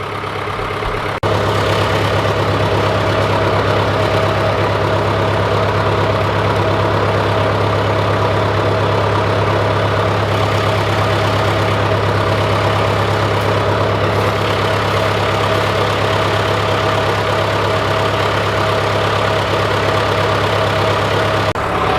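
John Deere 410C backhoe's diesel engine idling steadily as it warms up after a cold winter start. It gets louder about a second in, then holds an even note.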